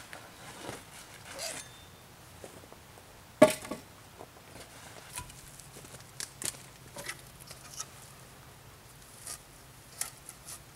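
A person handling wooden poles and moving about on a forest floor littered with sticks and bark: one sharp knock of wood about a third of the way in, then scattered footsteps, cracks and rustles.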